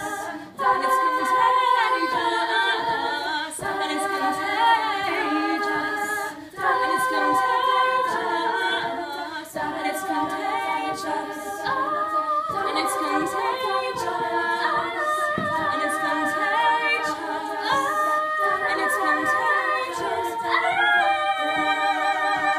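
All-female a cappella group singing in close harmony, holding chords with short breaks between phrases. Near the end the voices rise together to a higher held chord.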